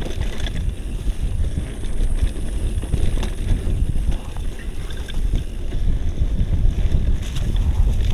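Wind buffeting the microphone over a steady low rumble from a mountain bike rolling along a trail, with scattered clicks and rattles.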